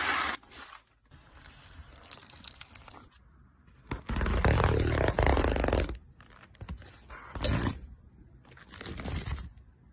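Dry horse feed being handled: pellets poured from a plastic scoop into a plastic tub, then a woven feed sack and chopped hay rustling and crunching as feed is scooped. The loudest rustling comes about four to six seconds in, with two shorter bursts near the end.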